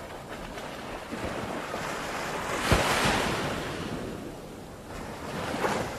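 Ocean surf on a beach. A wave breaks with a crash a little under halfway through, then its wash fades, and another wave builds near the end.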